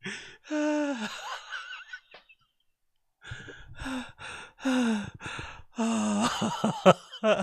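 A man laughing: one drawn-out laugh, a second of quiet a couple of seconds in, then a string of short laughs.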